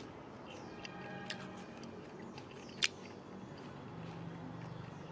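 Faint, scattered small clicks and crackles of fingers peeling the grilled skin off a whole baked fish, with one sharper click about three seconds in.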